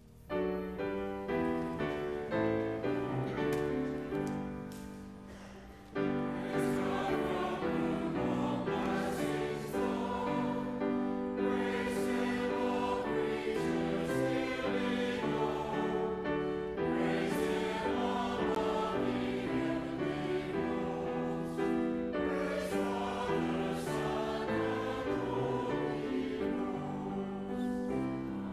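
Church choir singing an anthem with grand piano accompaniment. The piano plays alone at first, with chords that fade, and the full choir comes in loudly about six seconds in.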